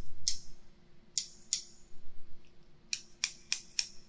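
Scissors snipping close to a binaural microphone, in a mock haircut. There are crisp, separate snips: one near the start, a pair a little after a second in, and four in quick succession about three seconds in.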